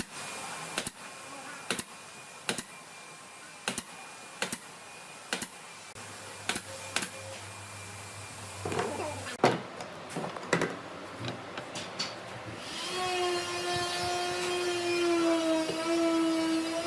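Woodworking shop sounds: sharp knocks at an even pace of a little more than one a second, then a flurry of irregular knocks and clatter. About thirteen seconds in, an electric power tool's motor starts and runs with a steady whine.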